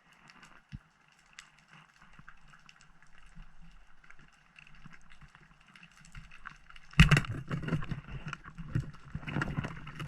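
Underwater ambience with faint scattered clicks. About seven seconds in, a sudden loud, irregular rush of water noise and knocks begins.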